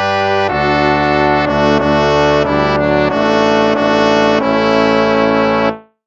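Instrumental hymn played in a brass sound, trombones and trumpets, in slow sustained chords. The music fades out near the end into a brief silence.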